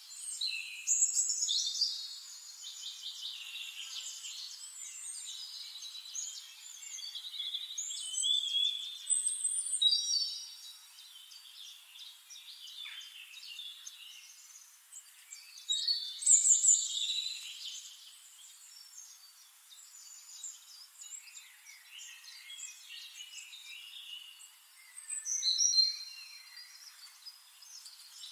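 Several birds singing and calling over one another: high chirps, rapid trills and short whistles, with louder phrases every several seconds. The sound is thin and high, with nothing low in it.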